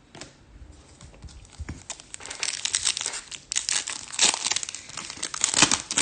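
Foil trading-card pack wrapper crinkling and tearing as it is ripped open by hand, light at first and busier from about two seconds in.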